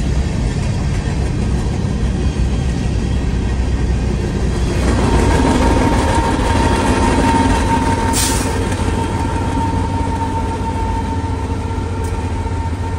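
Freight train rolling past, heard from a car driving alongside it, with a steady low rumble. About five seconds in, the lead diesel-electric locomotives draw level, adding a steady high whine and more engine sound. A short hiss comes about eight seconds in.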